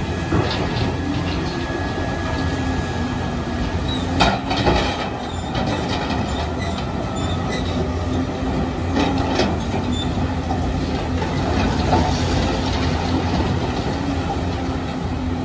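Large Volvo crawler excavator running under load, its diesel engine and hydraulics droning steadily as it swings and digs into broken stone. Sharp knocks of the bucket against rock come about four seconds in and again near nine seconds.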